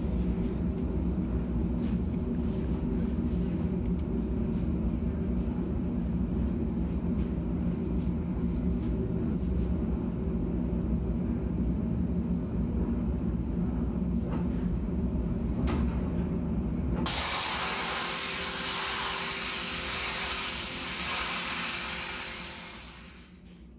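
A steady, low mechanical hum. About seventeen seconds in it gives way to the loud hiss of a high-pressure washer gun spraying water onto a screen-printing mesh, which cuts off just before the end.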